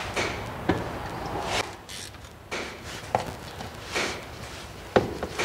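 Scattered sharp clicks and knocks of tools and small metal parts, with some rustling, as an ATV's oil filter cover is worked on by hand.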